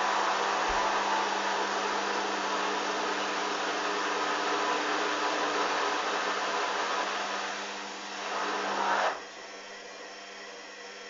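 Hoover Dynamic washing machine running with a steady rush of water and a low hum. It dips and swells near the end, then cuts off sharply about nine seconds in, leaving a quieter hum.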